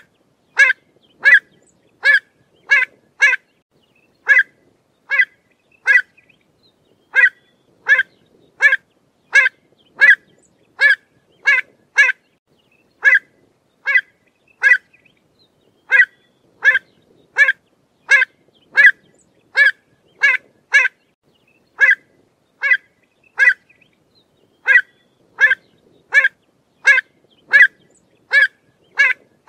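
Pied avocet calling: a long series of short, loud 'kluit' calls, about one and a half a second, with a few brief pauses.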